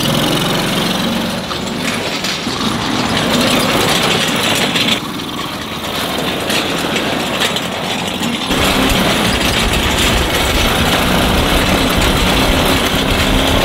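Small engine of a kids' ride-on tractor running as it drives along a dirt track towing a steel plow. The sound shifts abruptly about five seconds in and again about eight and a half seconds in, with a stronger low rumble after the second change.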